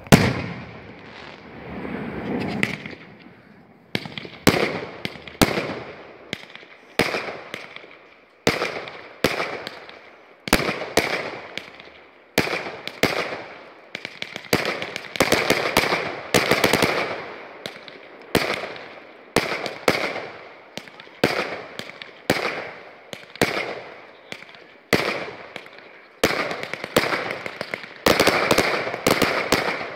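Aerial firework shells bursting one after another, a sharp bang about every second, each trailing off before the next. The loudest bang comes right at the start.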